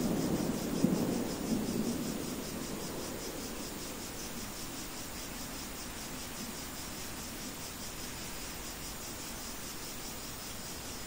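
Rain-sounds ambience: a low thunder rumble dies away over the first couple of seconds, leaving a steady hiss of rain with crickets chirping in a fast, even pulse.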